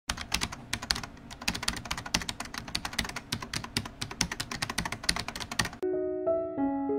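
Rapid computer-keyboard typing sound effect, a fast run of keystrokes that stops suddenly just before six seconds in. Piano music begins at that point with single sustained notes.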